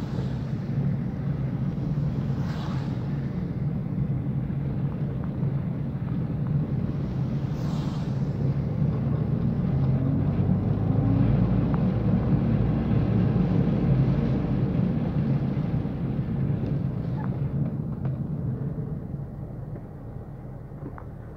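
Car interior noise while driving on wet streets: a low steady engine and tyre rumble that swells in the middle and dies down near the end as the car slows to a stop. A few brief swishes come early on.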